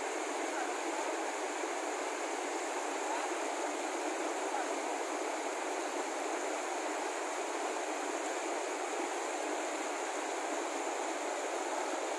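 Shallow mountain stream rushing over rocks: a steady, even rush of water.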